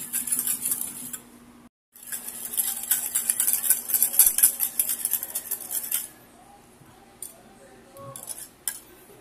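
Wire balloon whisk beating dalgona coffee paste (instant coffee, sugar and water) in a ceramic bowl: fast, rattling strokes of the wires against the bowl as the mixture is whipped toward a thick foam. The whisking breaks off briefly near two seconds in and stops about six seconds in, followed by a few light clicks.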